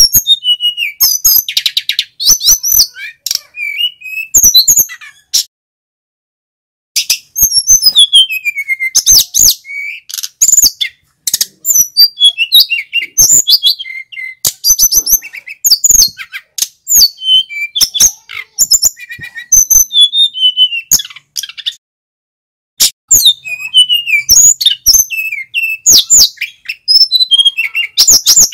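A male sikatan gunung (mountain flycatcher) singing a fast run of high, sweeping whistled notes mixed with sharp clicking notes, in long bursts with two pauses of a second or so.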